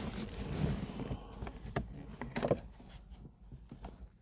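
Plastic interior trim being handled and worked into place: low rustling with a few soft clicks and knocks, two of them close together just under two seconds in.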